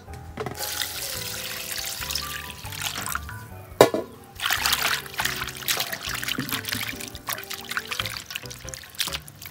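Water trickling and splashing in a stainless steel basin as vegetables are washed by hand, over background music. One sharp knock a little under halfway through.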